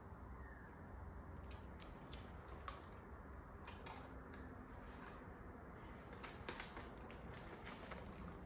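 Faint, scattered small clicks and taps of craft materials being handled and arranged, over a low steady hum.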